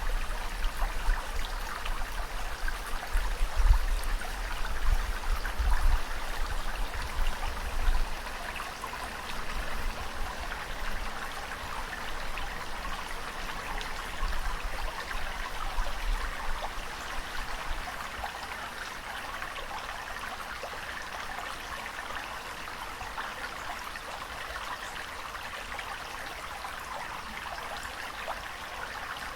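Steady rushing water, with low rumbles coming and going over the first eight seconds or so, then settling to an even rush.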